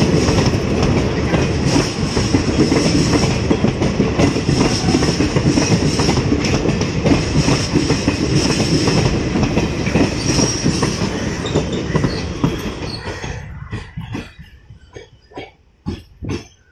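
Indian Railways passenger coaches running past at speed: dense wheel and track noise with wheels clacking over rail joints and a thin, steady high screech of wheels on rail. About 12 seconds in the noise fades as the last coach draws away, leaving a few separate clacks.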